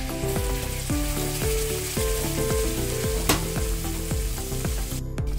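Hot oil sizzling in a steel wok as ground powder is poured into it, with one sharp pop about three seconds in; the sizzle stops near the end.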